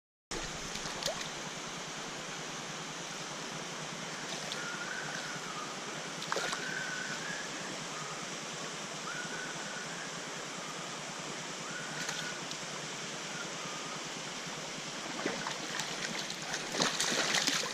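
Steady rush of flowing river water, with a few faint short whistles in the middle. Near the end come louder splashing and knocks as a hooked brown trout is brought into the shallows.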